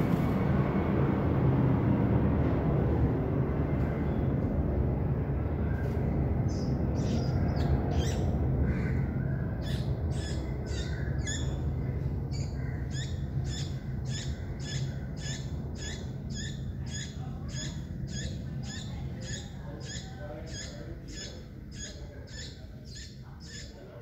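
A baby bird in the nest begging to be fed: short high chirps repeated about twice a second, starting about six seconds in and going on steadily. Under them a low rumble fades away over the first half.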